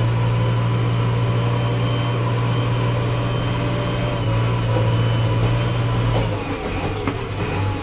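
JCB 3DX backhoe loader's diesel engine running steadily under way, heard from the cab, with a steady higher whine over the engine note. About six seconds in the engine eases off a little and its pitch drops slightly.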